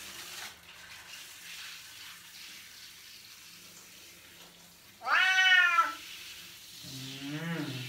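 A cat being bathed meows twice: a loud meow that rises and falls about five seconds in, and a shorter, lower-pitched one near the end. Before them, a faint hiss of water from a hand shower rinsing its fur.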